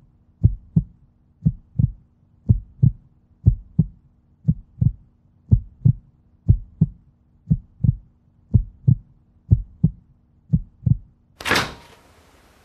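Heartbeat sound effect: a slow, steady lub-dub of eleven double thumps, about one beat a second, over a faint steady hum. A brief rush of noise comes near the end.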